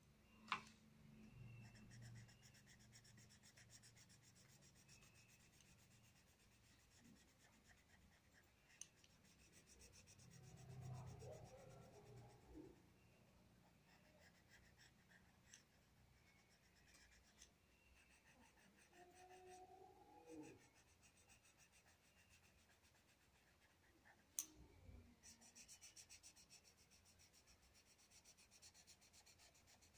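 Faint scratching of a colored pencil shading on a workbook's paper page, with one sharp click about three-quarters of the way through.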